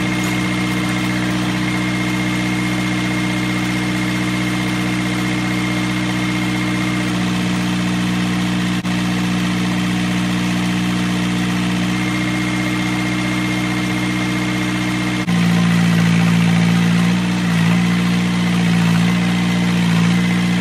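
Farm tractor's diesel engine idling steadily with the front-end loader attached. About fifteen seconds in the engine gets louder and its note shifts, with a few brief dips, as the loader is worked.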